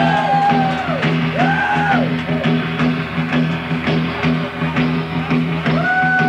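Surf and garage rock band playing live: long held lead notes that swoop up into pitch and slide back down, over a steady low drone and a regular drum beat.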